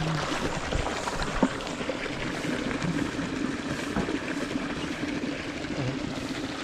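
Steady rush of running water feeding a natural spring-fed pool, with a brief knock about a second and a half in.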